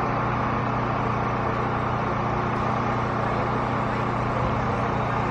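A vehicle engine running steadily, a constant low hum with no change in pitch or level.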